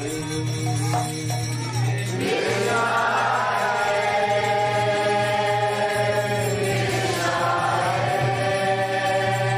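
Call-and-response devotional chanting: a single voice sings a line, then a group of voices answers about two seconds in, with the group's next phrase starting near the end. A steady low hum runs underneath.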